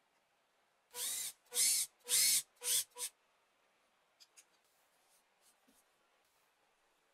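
Hand-held power drill boring a hole into plywood through a drill-stop jig, run in five short trigger bursts over about two seconds, the motor whine rising and falling with each burst. A few faint clicks and knocks follow as the jig is lifted away.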